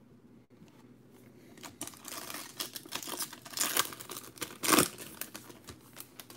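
Wrapper of a 2020 Bowman Chrome baseball card pack crinkling and tearing as it is ripped open by hand, with the loudest rip near the end.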